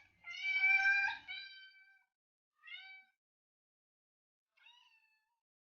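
A cat meowing three times. The first meow is long and high-pitched, a shorter one comes about two and a half seconds in, and a faint third follows near the end.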